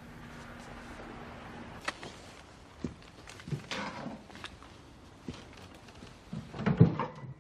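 A faint low hum for the first second and a half, then scattered knocks, clicks and handling noises of a person moving about a room, ending in a louder cluster of thuds near the end.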